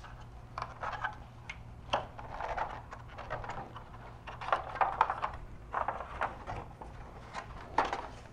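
Plastic grille parts of a 2018 Toyota 4Runner being unclipped by hand: irregular scraping and rattling of hard plastic, with a few sharp snaps as clips let go, one about two seconds in and one near the end.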